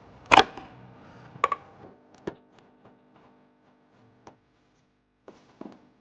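A series of sharp plastic clicks and knocks, the loudest about a third of a second in, from pressing down the release tab of a taillight wiring connector and unplugging it.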